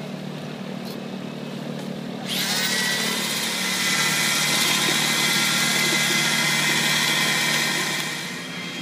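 Corded electric drill with a mixing paddle spinning up about two seconds in with a rising whine, then running steadily as it mixes grout in a bucket, dying away near the end.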